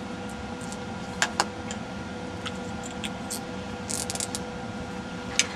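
Steady electrical hum with a few scattered light clicks and ticks, from small hand tools being handled at a soldering bench.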